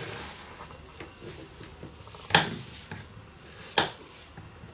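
Two sharp metallic snips about a second and a half apart, with a few faint ticks between: side cutters cutting through the thin soldered-on RF shield can of an iPhone 6S logic board.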